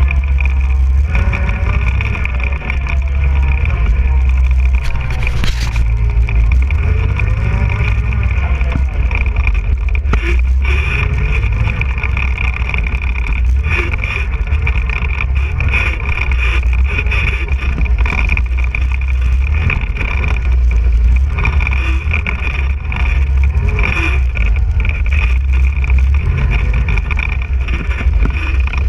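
ATV engine running under way, heard from on the quad itself: a steady low rumble with the engine pitch rising and falling as the throttle changes. A single sharp knock comes about five seconds in.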